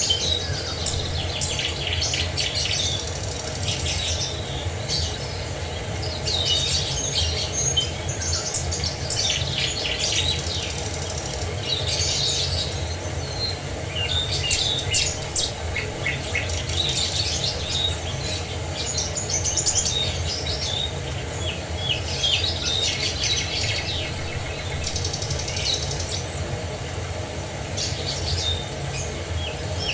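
Songbirds chirping and twittering in quick repeated bursts every few seconds, over a steady low rushing background.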